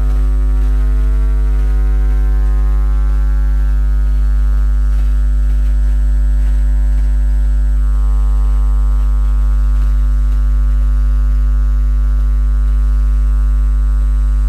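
Loud, steady electrical hum with many overtones, unchanging in pitch and level throughout.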